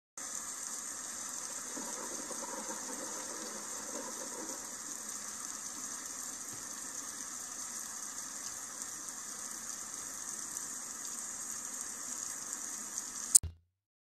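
Steady hiss of heavy rain during a thunderstorm. Near the end a single sharp crack sounds, and the sound cuts off.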